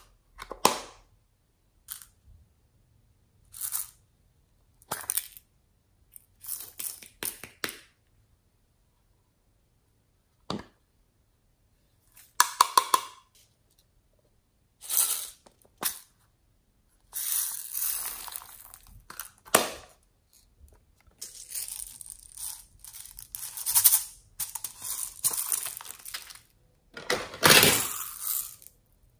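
Small plastic toy containers clicking and snapping as they are handled and opened, with small beads rattling and pouring. The sounds come as separate clicks and short rattles at first, then longer stretches of rattling and pouring in the second half, loudest near the end as pearl beads are poured from a small jar into a hand.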